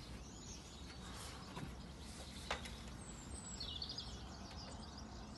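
Birds chirping in short calls, with a cluster of quick chirps about three and a half seconds in, over a steady low hum. A single sharp knock sounds about two and a half seconds in.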